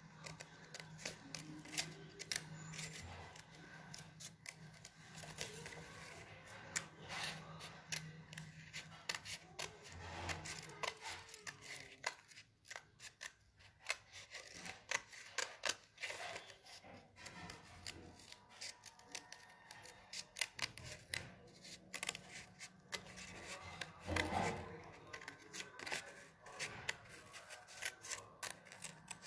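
Small scissors snipping through paper, cutting out a paper shape: a faint, irregular run of short snips.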